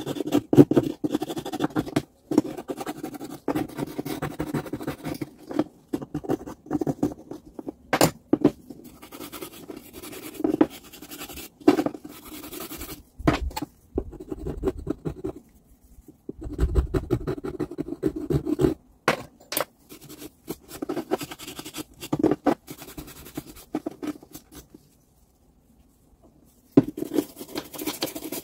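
Hand scraping and scratching on the angle grinder's parts: irregular rasping strokes with short pauses, going quiet for a couple of seconds near the end.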